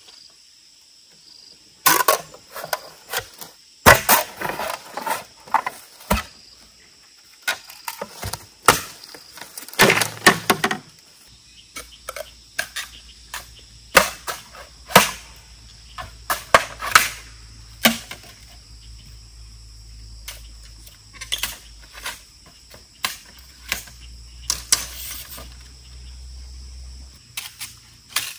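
Wood being chopped and knocked: irregular sharp strikes, some in quick clusters, with crickets chirring steadily.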